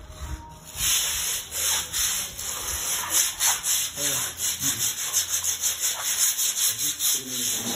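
Plastering trowel scraping skimming plaster across a wall in quick repeated strokes, with the broad knife scraping plaster on the trowel between passes.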